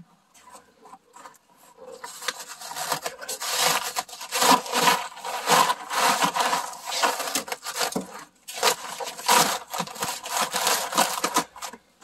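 Snow being scraped and knocked off a cabin's roof edge with a hand tool: quick, repeated scraping strokes, sparse at first, then building up about two seconds in and stopping just before the end.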